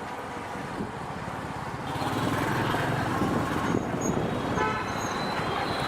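Traffic noise heard from a moving motorcycle: engine and road noise that grow louder about two seconds in, with a brief vehicle horn toot about four and a half seconds in.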